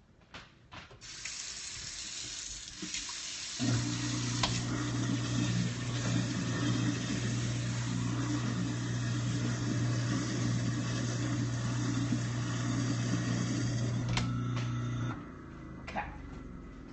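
Kitchen sink tap running hot water to wash bacon grease down the drain. About three and a half seconds in, a garbage disposal switches on and hums steadily under the water, then cuts off a couple of seconds before the end.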